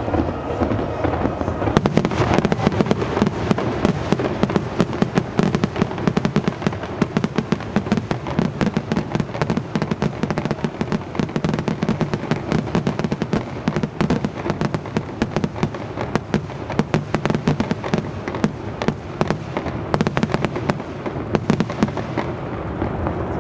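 Fireworks going off in a rapid crackling barrage, many sharp pops a second over a low rumble. The barrage begins about two seconds in and thins near the end.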